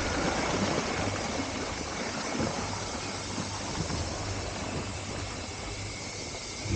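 Steady rushing of water around a river-ride raft, with a low rumble underneath.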